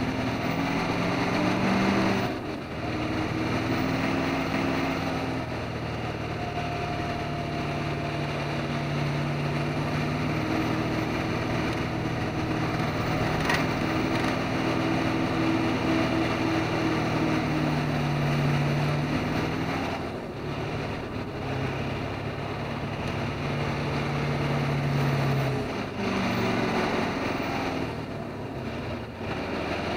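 Truck's diesel engine running under steady load, heard from inside the cab over road and tyre noise. The engine note drops away briefly three times and then picks up again.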